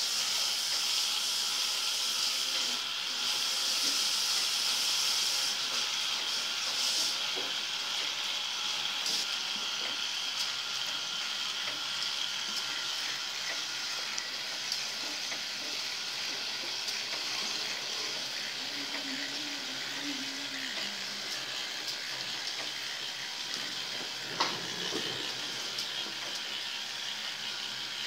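A K'Nex model of a fairground ride running, its many plastic gears meshing and its three small 12 V electric motors turning, giving a steady high whirring hiss. A single sharp click comes near the end.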